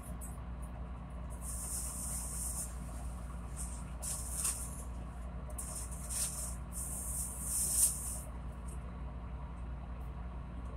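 Boat's diesel engine running steadily, a low drone, with bursts of high hissing a few times.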